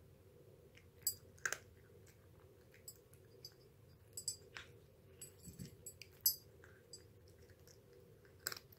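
A cat eating from a bowl: quiet, irregular chewing with scattered light clicks, a little louder about a second and a half in, around six seconds in, and near the end.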